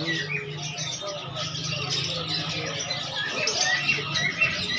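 Many birds at a bird market chirping at once: a dense, overlapping chatter of short calls, with a steady low drone underneath.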